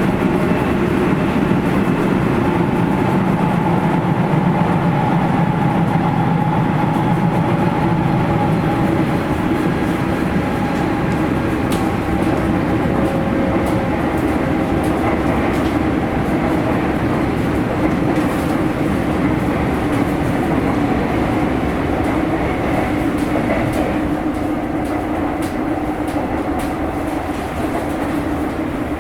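Running sound inside a Sotetsu 8000 series GTO-VVVF motor car at speed: a steady traction-motor and gear hum over wheel-on-rail rumble. A lower hum fades out about nine seconds in.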